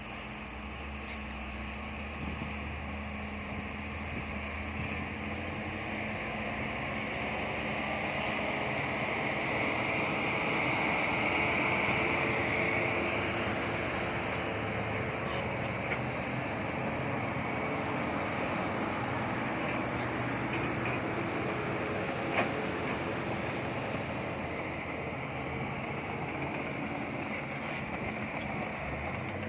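Bulldozer's diesel engine running under work, growing louder over the first dozen seconds and then holding steady, with one sharp click about 22 seconds in.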